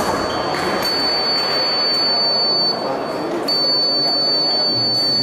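Electric fencing scoring box sounding a steady high tone, the signal that a touch has registered. It sounds for about two seconds, breaks off briefly, then sounds again, over the murmur of a busy sports hall.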